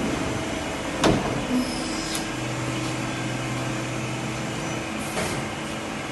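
A door bangs shut about a second in, with a smaller knock just after and another about five seconds in, over the steady hum of a running Mazak Quick Turn Smart 200 ML CNC lathe.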